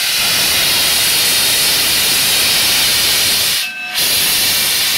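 Steam locomotive venting steam at track level in a loud, steady hiss, close by. The hiss drops out for a moment about three-quarters of the way through, then comes straight back.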